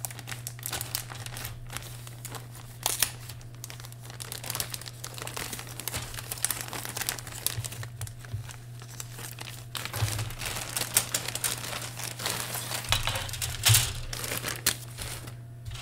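Clear plastic kit bag crinkling and rustling irregularly as a plastic model kit sprue is slid out of it.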